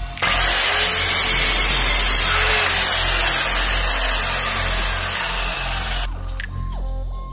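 Compound miter saw switched on and cutting through a thin wooden slat: a loud, steady whirring with a high whine that falls in pitch as the blade winds down, cutting off suddenly about six seconds in.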